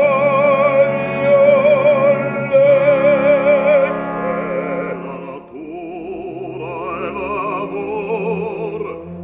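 Operatic bass voice with orchestra: a long held note with wide vibrato, then after a short dip in level, quieter sung phrases continue over sustained orchestral chords.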